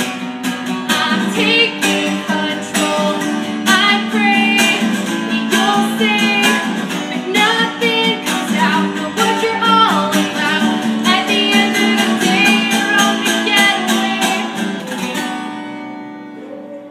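Acoustic guitar strummed with a woman singing a song. Near the end the singing and strumming stop and the final guitar chord rings on and fades away.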